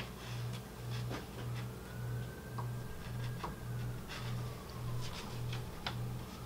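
Soft background music with a steady low pulse a little under twice a second and a faint gliding tone above it. A few faint clicks sound over it.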